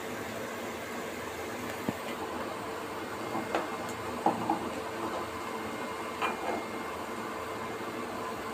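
A steel slotted spoon clinking and scraping against a steel kadai and a steel plate as fried beef pieces are lifted out and set down: a handful of short light clinks, the sharpest a little past the middle, over a steady background hum and hiss.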